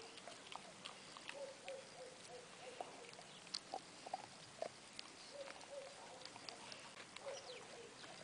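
Dog chewing on a bone, with many small irregular cracks and crunches as its teeth break it up.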